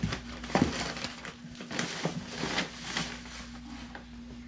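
Rustling and scraping of clothing against a cardboard shipping box as a garment is rummaged for and pulled out, in irregular bursts.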